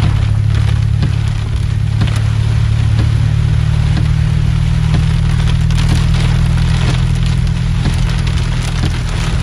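Heavy rain pelting a car's windshield and roof, heard from inside the cabin: a dense, steady patter of countless drop impacts over a loud low rumble.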